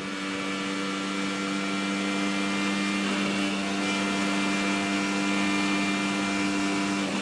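A 2017 IndyCar's Honda 2.2-litre twin-turbo V6 running flat out at steady high revs, heard from on board the car.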